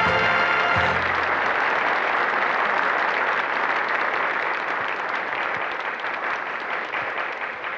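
Theatre audience applauding: a dense patter of many hands clapping that slowly fades. A brass fanfare's last chord dies away about a second in.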